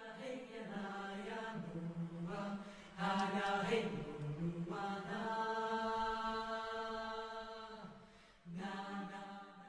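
Vocal music: voices singing long held notes with little or no accompaniment, fading near the end before a short last phrase that cuts off suddenly.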